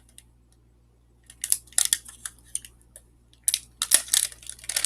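Plastic snack wrapper crinkling and crackling in quick bursts as it is torn open, starting about a second in.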